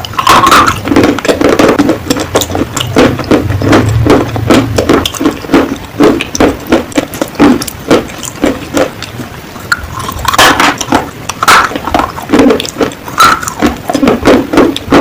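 Close-up crunching and chewing of baked Punjabi clay (panjab ki mitti) pieces, sharp crackles over a steady chewing rhythm of about three bites a second, with a few louder crunches around two-thirds of the way through.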